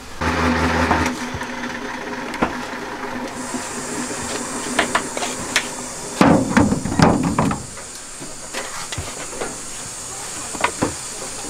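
Honeycomb frames being uncapped by hand: knives scraping wax cappings off the comb and knocking against the wooden frames and the plastic bucket, with scattered clicks and a louder scraping patch midway. A steady high hiss sets in about three seconds in.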